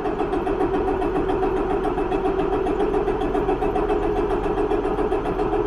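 Paccar six-cylinder diesel engine being cranked over by its starter motor without running, for a cranking pressure test. It turns over with a steady, even pulse of several beats a second.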